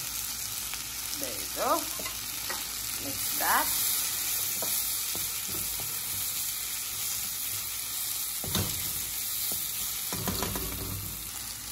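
Beans and tomato curry sizzling in a wok while a wooden spatula stirs it, with a few short scrapes early on and a couple of low knocks later.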